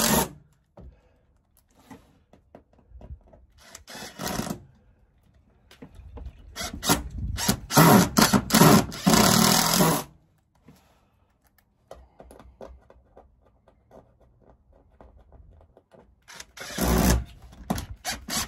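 Cordless DeWalt impact driver driving screws up into plywood, in bursts: a short one about four seconds in, a long loud run from about six to ten seconds, and another near the end.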